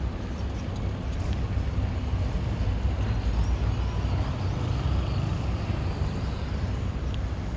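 Outdoor street noise: a steady low rumble of road traffic mixed with wind buffeting the microphone.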